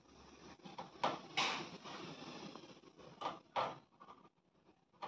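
Kitchen cloth rustling as a squeezed bundle of fresh paneer is folded and handled, with a few sharp knocks of a cooking pot, two about a second in and two more past the middle.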